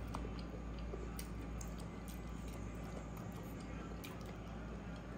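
Eating by hand: scattered small clicks and smacks from chewing and from fingers working rice and meat, over a steady low hum.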